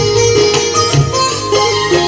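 Instrumental break in a song: a melody line over a steady, regular beat, with no singing.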